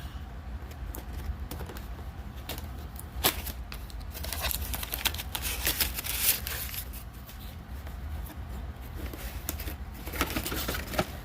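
Cardboard box and packaging being opened and handled: a sharp snap about three seconds in, then rustling and scraping of cardboard, with more rustling near the end, over a steady low hum.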